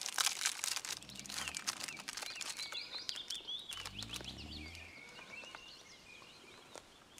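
Plastic snack-bar wrapper crinkling for about the first second, then birds singing and chirping. Twice there is a brief low voice-like hum.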